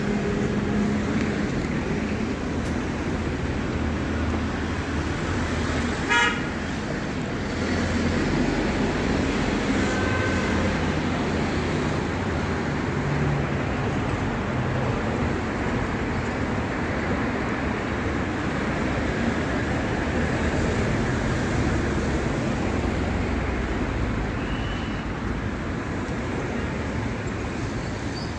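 Steady road traffic noise from passing cars, with a short car horn toot about six seconds in.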